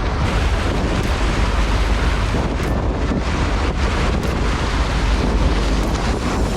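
Wind buffeting the microphone over the steady rush of sea water around a sportfishing boat.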